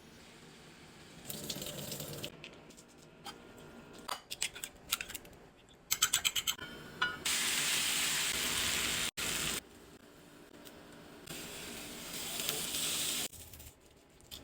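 Food-preparation sounds: a quick run of about six clicks, then two stretches of steady hiss, each about two seconds long.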